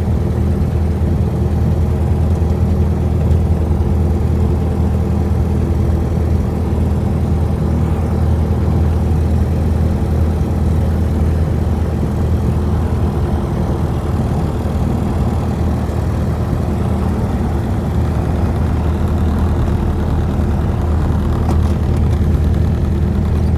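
Light aircraft's piston engine and propeller making a steady, even drone with a strong low hum.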